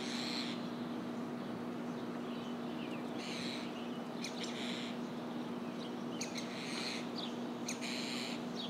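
Birds chirping and calling in short bursts, heard over an even background hiss and a steady low hum.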